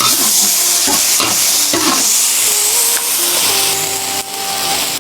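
Eggs frying in hot oil, a loud steady sizzle that fades out near the end. Background music comes in about halfway through.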